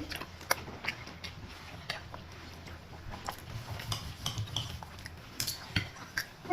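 Cutlery clinking against plates and dishes during a meal: scattered light clicks, about half a dozen spread unevenly.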